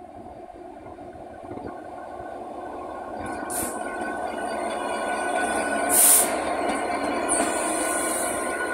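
Class 66 diesel-electric freight locomotive's two-stroke EMD V12 engine running, getting steadily louder as the locomotive hauls a train of hopper wagons up to and past the listener. Brief high squeals from the wheels on the rails come three times, the loudest about six seconds in.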